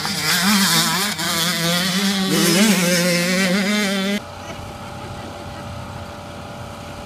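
Small 65cc two-stroke motocross bikes revving hard on the track, the engine note wavering up and down in pitch as the throttle is worked. About four seconds in, the sound cuts off abruptly to a quieter steady hum.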